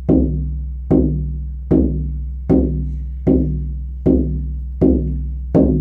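Buffalo-hide harmonic shamanic frame drum struck in a slow, steady beat, about one stroke every 0.8 seconds. Each stroke rings on with a deep boom and several overtones sounding together, so the drum never falls quiet between beats.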